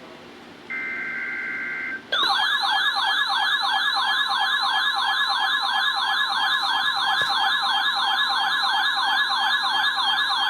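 NOAA Weather Radio test alert: an EAS/SAME digital header burst, a harsh steady two-tone screech lasting about a second. About two seconds in, a loud warbling siren-like alarm starts, sweeping up and down several times a second over a steady 1050 Hz attention tone, which marks the alert tone that activates weather alert receivers.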